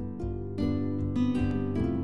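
Background music of plucked string notes, a new note sounding about every half second.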